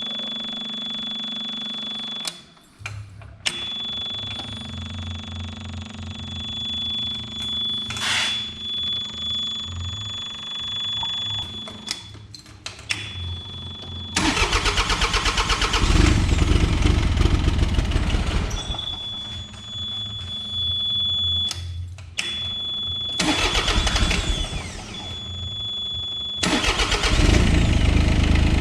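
Kobelco SK17SR mini excavator being started after a fuel filter change: first the ignition is switched on and off a few times, with a steady high warning tone and the electric fuel pump's hum stopping and restarting. About fourteen seconds in, the diesel engine cranks and fires. After a second burst about ten seconds later it settles into a steady run.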